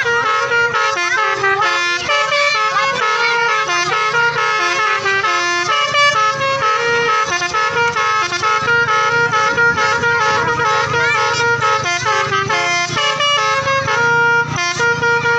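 Indonesian 'telolet' multi-tone bus horns playing tooting melodies, with several buses answering one another in overlapping tunes over a low engine hum.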